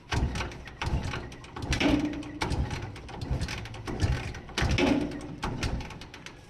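Irregular metallic clicking and clattering of hand tools working on a motorcycle, in several short clusters.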